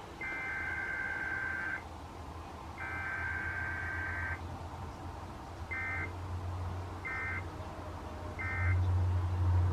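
Emergency Alert System SAME digital data bursts received over AM radio. Two long screeching bursts of the header code come first, then three short bursts of the same tones about a second apart, the pattern of the end-of-message code. A low hum runs underneath and grows louder near the end.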